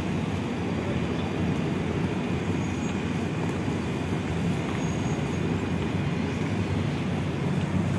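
Steady low rumble of road traffic, with no distinct events standing out.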